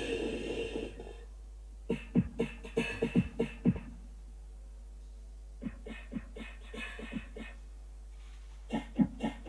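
Electronic sound from a live Csound demo over the loudspeakers: a held noisy tone fades out in the first second, then come clusters of short, sharp plucked or clicking strokes, each cluster lasting about two seconds with pauses between them, the middle one fainter.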